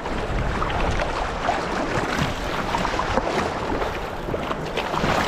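Sea kayak being paddled through choppy water: paddle blades splashing with each stroke and water rushing and slapping against the hull, with wind buffeting the microphone.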